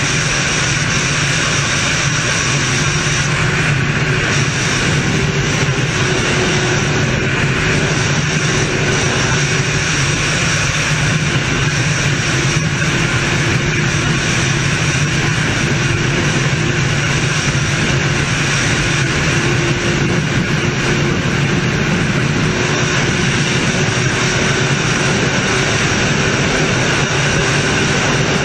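Sport motorcycle engine running hard at steady high revs during a top-speed run, with wind rushing over the onboard camera. The pitch holds nearly constant, echoing inside a road tunnel.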